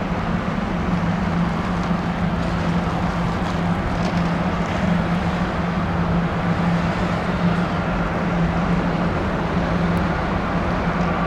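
Airbus A350's jet engines running, a steady rushing noise over a constant low hum, without rising or fading.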